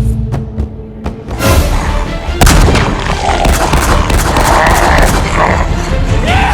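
Loud booms and rapid gunfire-like cracks over music, with two heavy hits about a second apart early on and dense crackling after them.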